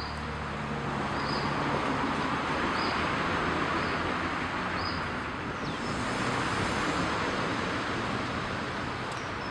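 Road traffic: a motor vehicle's engine and tyre noise swelling as it passes and easing off again, over a steady traffic hum. Faint short high chirps come about once a second in the first few seconds.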